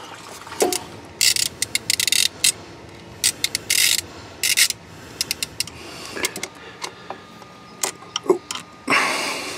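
Hand ratchet with a 10 mm flex socket clicking in several short bursts as the thermostat housing bolts are worked loose.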